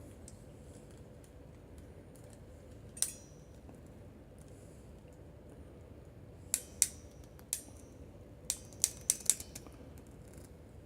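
Hilitchi HS-30J ratcheting crimper being squeezed down on a blue insulated terminal: sharp metallic ratchet clicks, one about three seconds in, then a quicker run of about seven clicks in the second half as the jaws close.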